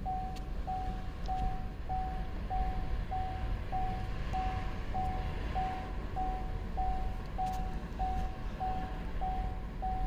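A vehicle warning chime beeping steadily, a short single-pitched tone about twice a second, over a low steady hum.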